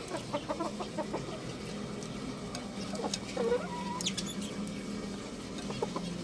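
Young rooster clucking and chirping: a quick run of short calls in the first second, then another brief call about three seconds in, with a few sharp clicks around four seconds.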